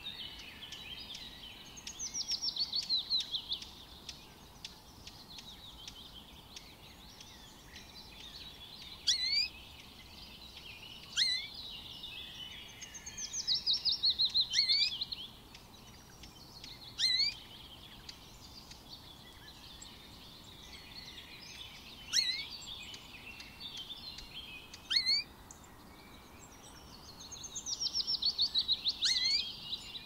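Songbirds calling. A rapid, fast-pulsed trill comes three times, about every twelve seconds. Between the trills are single sharp upslurred call notes, over a steady faint twittering of other birds.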